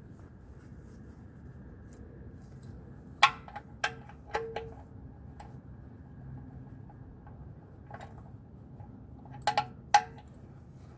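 A handful of sharp clinks and knocks as the oil filter housing and removal tool are handled while the housing is unscrewed by hand: three a few seconds in, one ringing briefly, and two close together near the end.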